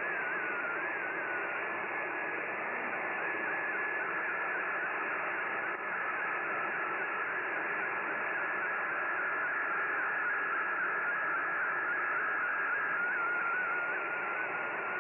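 Shortwave AM reception of a VOA Radiogram digital picture transmission: a single tone wavering in pitch in the middle of the audio band, fldigi's MFSK picture signal, over steady static hiss. The tone drops slightly in pitch near the end.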